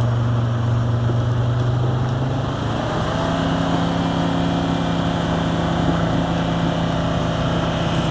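Van engine running hard under load as the van drives through a roadside ditch trying to get out. The steady note steps up in pitch about three seconds in and then holds.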